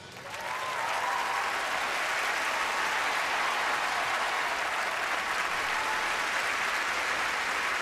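Large concert audience applauding as the song ends. The clapping swells over the first second and then holds steady, with a few cheers in the first second or so.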